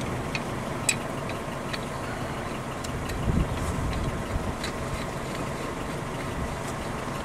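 A few light metal clicks and taps as a C-clamp and an old brake pad are fitted against a brake caliper, over a steady low rumble.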